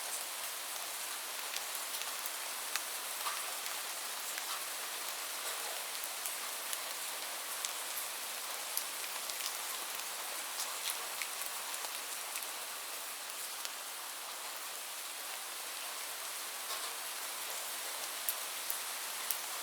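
Light rain falling steadily: a soft, even hiss with scattered drop ticks.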